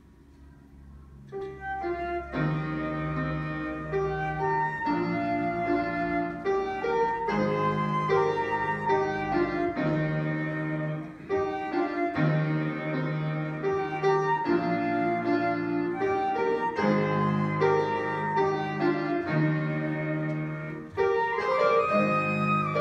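Flute and grand piano playing a classical duet: the music starts about a second and a half in, with the piano's chords and bass notes under the flute's melody.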